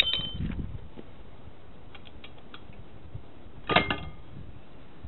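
Metal-on-metal clinks and knocks as the flywheel of a VW 1600 air-cooled engine is worked off the crankshaft: a sharp clink at the start, a few light clicks, then a loud ringing clank just under four seconds in as the heavy flywheel comes loose.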